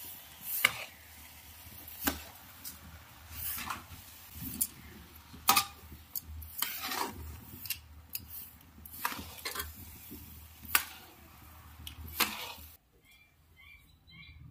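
Flat metal spatula scraping and knocking against a metal kadhai while sugar is stirred into roasted moong dal, with sharp scrapes about once a second. The stirring stops near the end.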